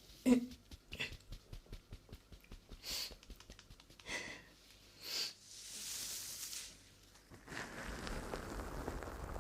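ASMR mouth sounds close to the microphone: a run of quick wet clicks and a few breathy puffs, then a longer breathy hiss. Near the end a dense crackling rustle with a low rumble takes over.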